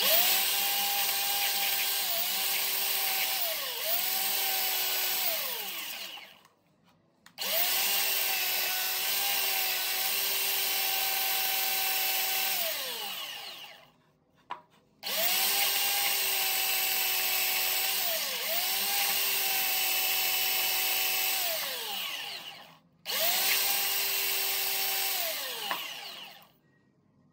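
JCB belt sander running in four separate stretches, its motor whine sagging briefly in pitch a few times as wood is pressed against the belt. After each stretch the motor winds down with a falling pitch.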